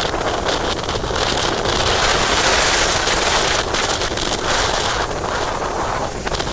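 Strong typhoon wind gusting and buffeting the microphone: a loud, unbroken rush that swells in the middle and eases briefly near the end.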